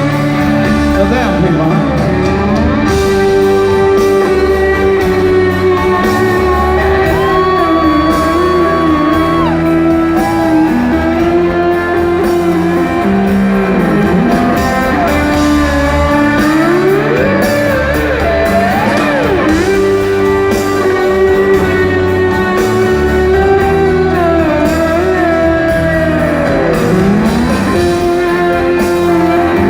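Live rock band playing in a large hall: a held, sliding lead line with bending notes over guitars, bass and drums, with singing mixed in.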